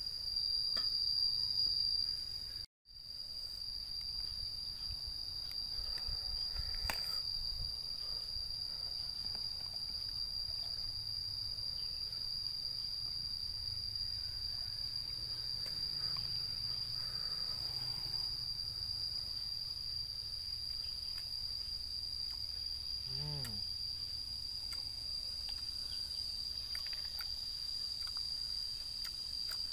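Steady high-pitched insect chirring in one unbroken tone, cut off for an instant about three seconds in.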